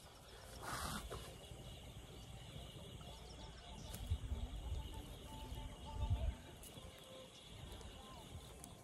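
Quiet outdoor ambience with faint bird calls, and two low rumbles about four and six seconds in.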